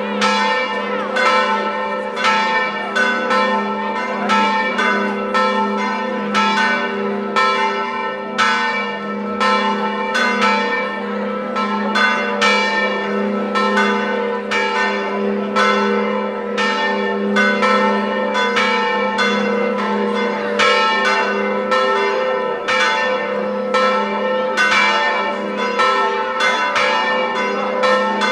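Church bells pealing: a quick, uneven run of strikes, about three every two seconds, with the bells' lower tones humming on steadily underneath.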